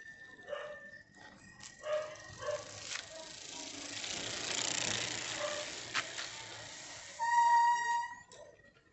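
A bike-mounted noisemaker sounding as the bike is ridden past. A rushing noise builds and fades over several seconds, then a loud held electronic-sounding tone lasts under a second near the end. A steady high buzz, from a cicada, runs underneath.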